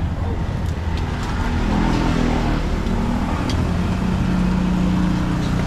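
Street traffic noise with a motor vehicle engine running close by; its hum wavers in pitch about a second and a half in, then holds steady. A few light clicks sound over it.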